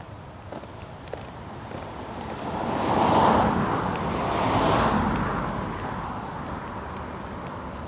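Cars passing by on a street, the tyre and engine noise swelling and fading twice, peaking about three seconds in and again a second and a half later.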